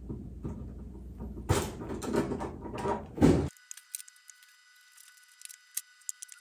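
Handling noise from a thin aluminium aircraft skin being shifted and pressed over its ribs, with metallic clicks and rattles from Clecos and Cleco pliers. The loudest knocks come about three seconds in, then the sound drops to faint scattered ticks.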